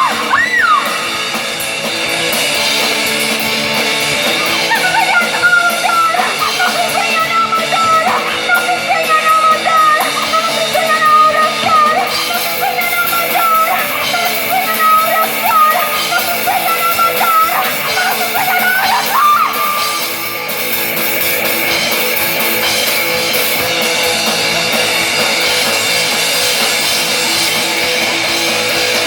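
Live rock band playing loudly with distorted guitars and drums. A wavering high melodic line rides over the band from about five seconds in until about nineteen seconds, after which the band carries on without it.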